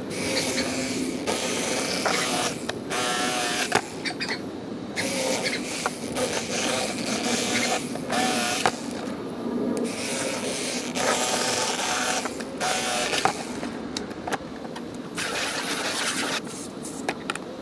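Electric fillet knife running in repeated short spells as it saws through crappie, its motor buzzing at a steady pitch, stopping and restarting many times. Near the end a garden hose sprays water.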